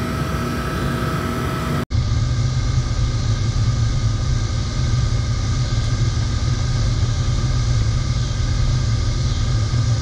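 Forced-air oil burner firing a tilting-hearth furnace, running steadily. About two seconds in, the sound cuts briefly to silence and comes back louder, with a stronger low rumble that holds steady.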